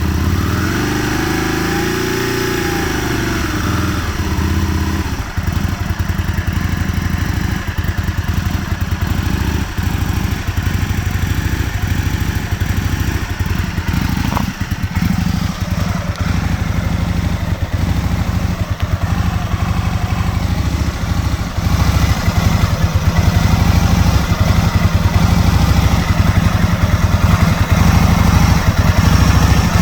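2001 Aprilia Futura's 998 cc V-twin engine running just after starting: a brief rise and fall in revs, then a rough, uneven idle as the engine struggles to keep running. The idle gets a little louder about three quarters of the way through.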